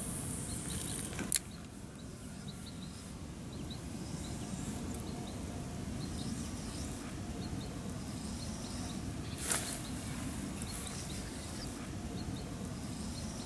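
Spinning reel being cranked as a lure is retrieved, over a low steady background. Two sharp clicks stand out, about a second in and again near ten seconds, and faint high chirps come and go.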